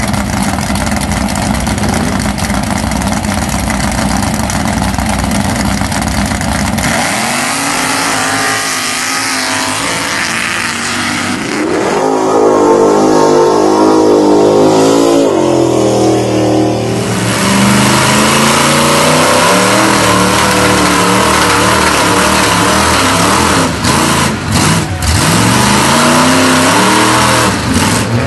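Mega mud truck engines at high throttle, revving up and down. A dense roar for the first several seconds gives way to rising and falling revs, with abrupt changes as one run gives way to another.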